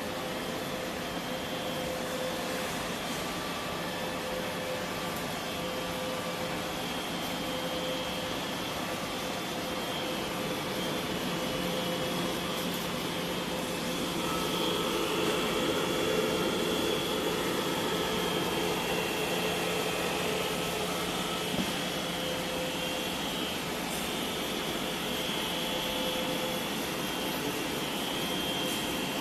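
Staple-making production line machinery running steadily: a continuous mechanical whir and hum with a couple of steady tones over it, a little louder midway.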